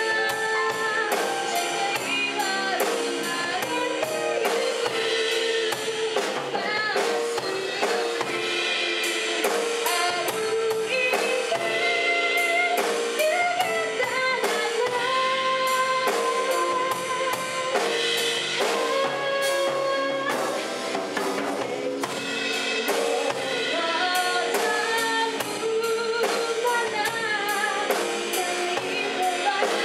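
Live band playing a Japanese pop song: a woman singing into a microphone over a Bonny acoustic drum kit and an electric bass.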